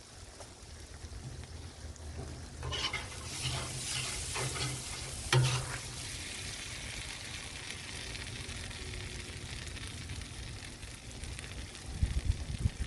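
Food sizzling on a Blackstone flat-top griddle, with several metal spatula scrapes across the griddle plate about three to six seconds in, then a steady sizzle. A few knocks near the end.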